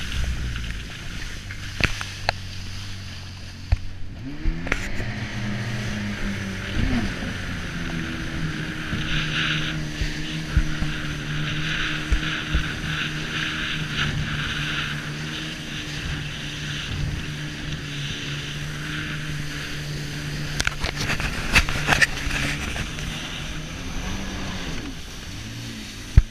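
Jet ski engine running under way at sea, with water rushing past. The engine pitch dips about four seconds in, climbs back and holds steady, then drops again near the end, with scattered knocks.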